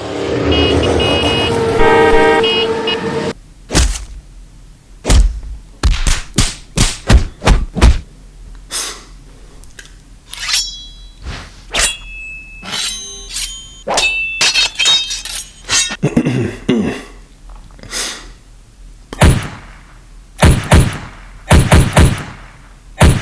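A man's vocal sound-effect imitations: a held, honk-like tone for about three seconds, then a long run of sharp, irregular thwacks and thuds with high whistling, ringing tones mixed in partway through.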